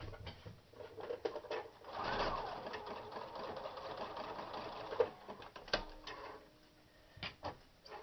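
Electric home sewing machine running steadily for about three seconds as it sews an overcast stitch along the fabric edge, then stopping. A few sharp clicks follow near the end.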